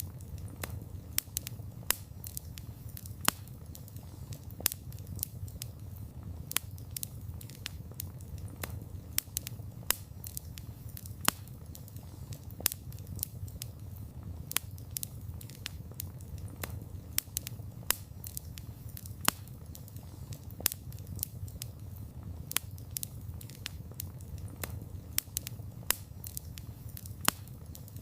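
Campfire of burning wood crackling: frequent irregular sharp pops and snaps, several a second, over a low steady rumble of the flames.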